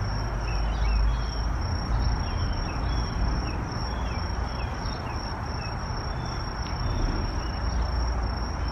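Outdoor ambience: a steady high-pitched insect trill, with short bird chirps scattered through it over a low rumble.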